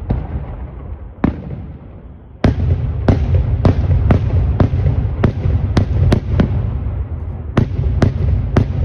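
Aerial firework shells bursting in the sky as sharp bangs over a continuous low rumble of echo. A single bang comes about a second in, then from about two and a half seconds a rapid run of bangs at roughly two a second.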